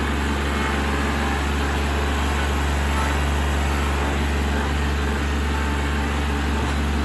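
Kubota L3901 compact tractor's three-cylinder diesel engine running steadily with a deep, even hum while the front loader is worked.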